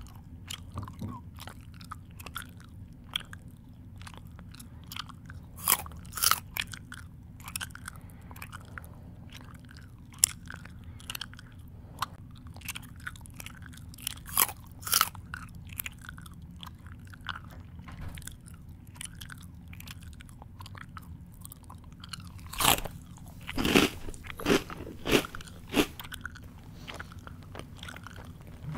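A person chewing close to the microphone: irregular crunches and mouth smacks over a faint low hum, with louder crunching in a few clusters and a run of the loudest bites near the end.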